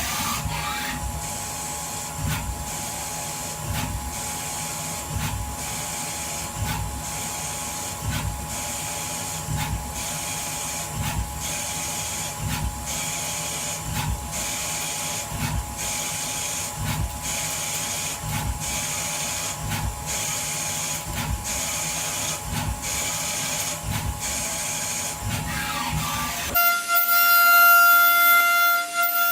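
CNC machine running, with a steady whine and hiss and an even pulse about every 0.7 seconds. It cuts off abruptly near the end, where music begins.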